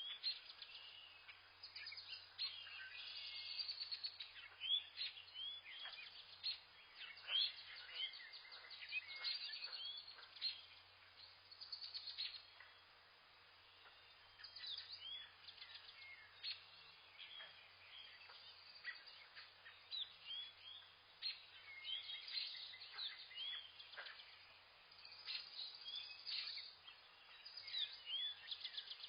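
Several birds chirping and calling together, many short rising and falling notes overlapping, with a brief lull about halfway through.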